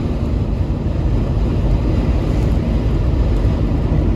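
Steady low rumble of a vehicle on the move, road and engine noise heard from inside the car.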